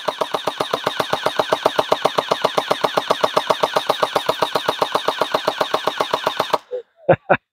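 Electric gel ball blaster firing on full auto: a rapid, even rattle of its motor-driven gearbox cycling shot after shot. It stops suddenly about six and a half seconds in, followed by a few separate sharp clicks.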